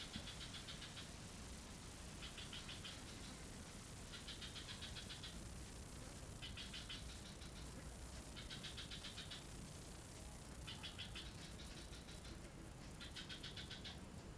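Faint animal call: a pulsed, buzzy trill about a second long, repeated roughly every two seconds, over a steady hiss.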